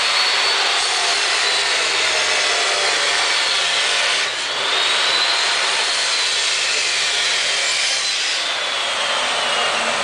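A power tool's motor runs with a high whine over a steady rushing noise. The whine climbs and then slowly sags, drops out briefly about four seconds in, then climbs and sags again.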